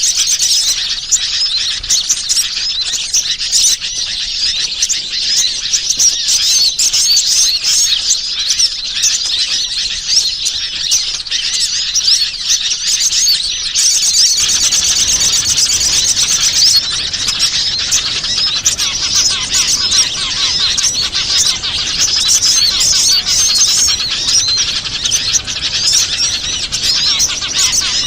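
Bird-lure recording of many small wild songbirds chirping and twittering together in a dense, continuous high chorus. The mix shifts about halfway through, when a busier, fuller layer of calls comes in.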